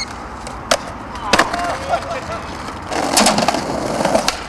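Skateboard on concrete: sharp clacks of the board hitting the ground, wheels rolling, and a longer scraping stretch about three seconds in, typical of the board sliding or grinding along a ledge.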